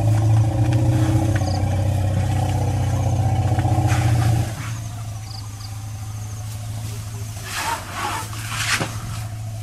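A vehicle engine idling steadily, dropping to a lower level about four and a half seconds in and running on. Short rustles near the end.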